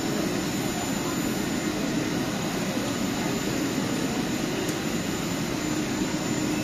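Steady rushing drone of a double-deck regional train standing at an underground station platform, with the murmur of passengers boarding.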